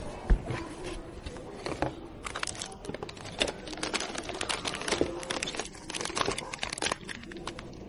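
Plastic or paper packaging crinkling and rustling as it is handled, with many quick clicks and taps.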